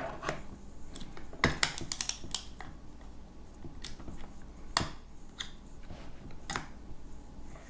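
Scattered light clicks and taps of a small hex screwdriver working a tiny screw out of the hinge of plastic infrared video goggles, with a quick run of clicks about a second and a half in and single ticks later.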